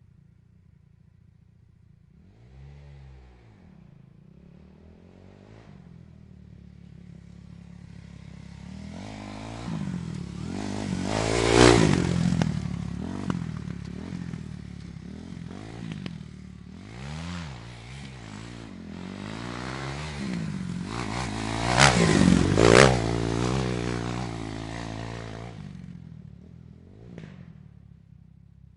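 Motorcycle engine revving up and down, its pitch rising and falling, growing from faint to loud twice, about twelve seconds in and again near twenty-two seconds, then dying away near the end.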